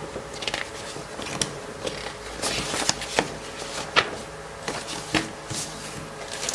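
Plastic model kit parts being handled: irregular clicks and rustles of plastic runners and their bags, with one sharper click about four seconds in.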